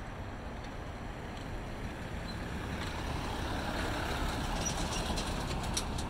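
Ram 2500 Heavy Duty pickup truck towing a dump trailer driving past close by, its engine and tyre noise swelling over the last few seconds, with light clanking from the trailer near the end.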